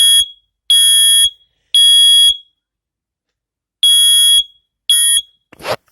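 First Alert smoke alarm sounding its loud, high-pitched test alarm in the temporal-three pattern while its test button is held: three beeps, a pause, then two more beeps, the last cut short. A short handling knock follows near the end.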